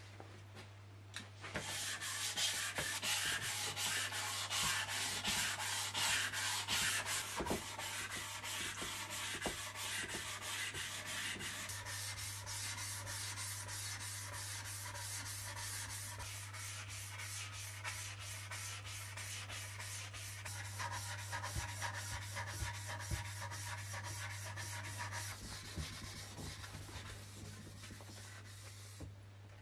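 Steel axe head being wet-sanded by hand on wet-and-dry sandpaper with water: a steady rasping of quick back-and-forth strokes that starts about a second and a half in and stops near the end.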